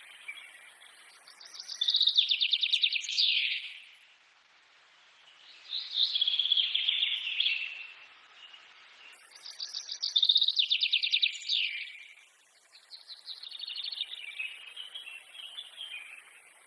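A songbird sings a fast trilled phrase four times, each about two seconds long and falling in pitch, with short pauses between.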